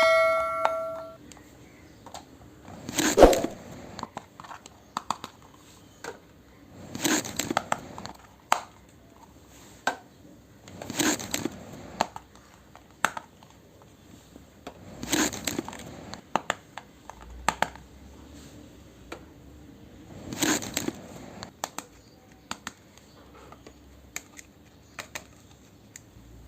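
Plastic packaging crinkling and tearing in short bursts about every four seconds, with small clicks between. A ringing ding fades out within the first second.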